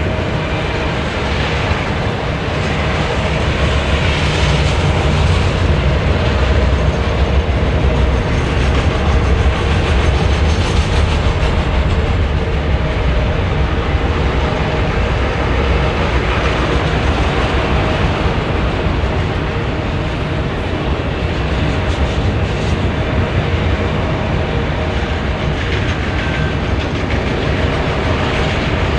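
Autorack freight cars rolling past on steel rails: a steady, loud low rumble of wheels on track with a continuous rattle and clatter.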